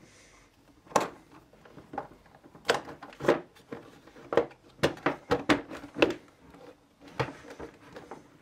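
Hard plastic clicks and knocks, about a dozen irregular taps, as a pressure washer's plastic outer housing shell is handled and pressed into place on its plastic base.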